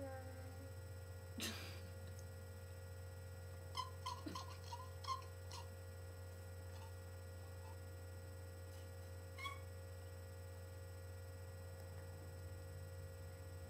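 Steady low electrical mains hum, with a brief rustle about one and a half seconds in and a quick run of faint short clicks around four to five seconds in.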